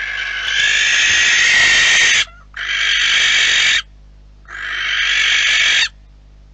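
Barn owl giving three long, harsh screeches, the first the longest at about two and a half seconds, the other two shorter, each cutting off abruptly.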